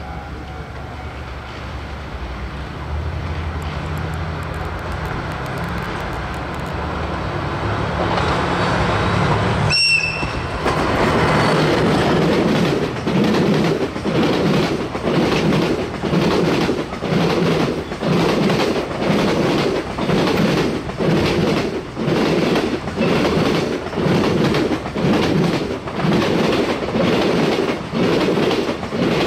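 JR Freight DF200 diesel-electric locomotive approaching with its diesel engines running and growing louder, then a brief, gentle blast on its horn about ten seconds in. After that the container wagons roll past with a steady clatter of wheels over rail joints, about once a second.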